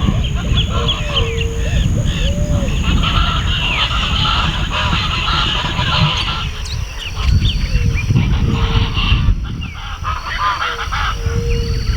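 Dense chorus of many wild birds calling over one another, including repeated honking calls, over a steady low rumble.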